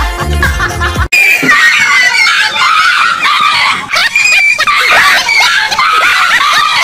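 High-pitched screaming and shrieking, cutting in abruptly about a second in, after a brief stretch of music with a heavy bass line.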